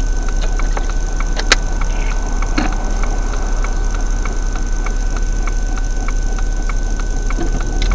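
A car's turn-signal indicator ticking evenly, about three clicks a second, over the steady low hum of the car in motion, with one sharper click about a second and a half in.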